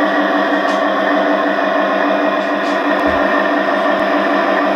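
Diesel locomotive engine sound from the DCC sound decoder of an LGB G-scale SD40 model, played through the model's small onboard speaker as the locomotive runs along the track. It is steady, with an even pulsing beat several times a second.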